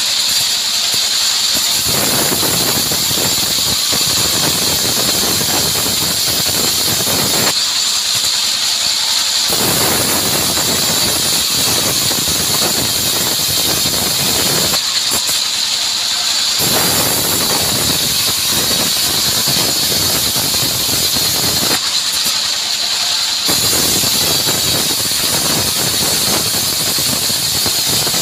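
Vertical band sawmill with a steady high whine from the running blade, sawing a mahogany log. Stretches of dense cutting noise about six seconds long are broken three times by pauses of a second or two, when the cutting noise thins and the whine carries on.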